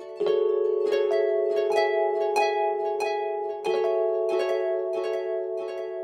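Background music: a plucked-string tune, harp-like, with a new note struck about every two-thirds of a second over held tones.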